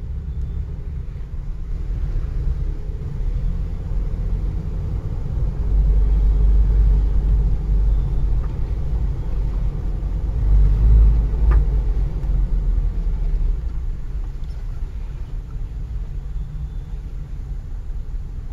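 Low, steady vehicle rumble heard inside a pickup truck's cabin in slow stop-and-go traffic, swelling louder twice, around six and eleven seconds in. A short sharp click comes near the end of the second swell.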